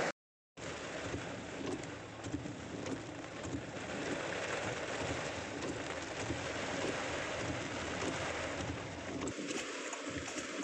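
Heavy storm rain pouring steadily, a dense even rush. It cuts out for a moment just after the start, and the deep rumble under it falls away near the end.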